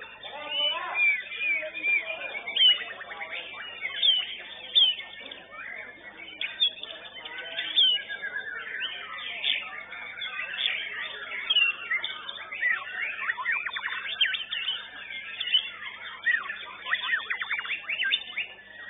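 White-rumped shama (murai batu) singing continuously in a varied song of whistled sweeps and glides, broken by fast rattling trills about two-thirds of the way through and again near the end.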